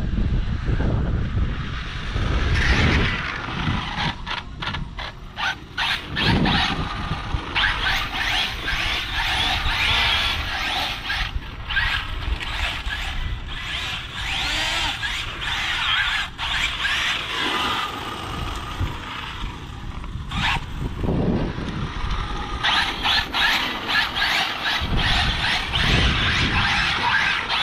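Arrma Limitless RC speed-run car on 8S power, its motor and gears making a high-pitched, jet-like whine that swells and fades over several runs, sometimes cut into short stabs.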